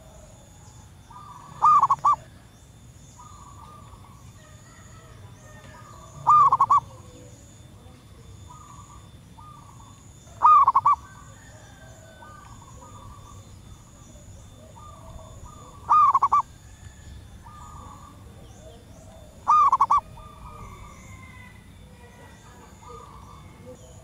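Zebra dove (perkutut) calling: five loud, short calls, each a quick cluster of notes, one every four to five seconds, which the uploader takes for a female calling a male. Softer calls from other birds come in between.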